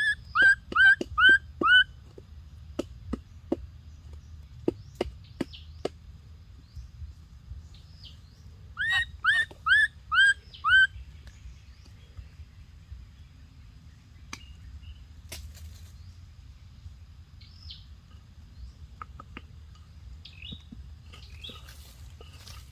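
Short chirping animal calls in two quick runs of about five, one at the start and one about nine seconds in, with scattered sharp clicks between them over a faint steady high tone.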